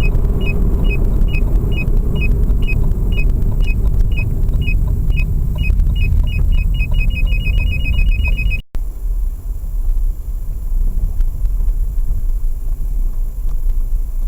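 Car parking-sensor buzzer beeping about twice a second, quickening to a rapid string as the car closes on an obstacle, then stopping abruptly. Under it, the low rumble of the Lada Vesta running at low speed goes on.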